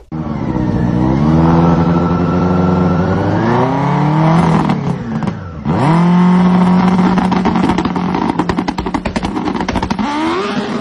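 Turbocharged snowmobile engine revving: its pitch climbs and falls a few times, drops sharply about five and a half seconds in, then is held steady and high with a fast stream of crackling pops before falling off near the end.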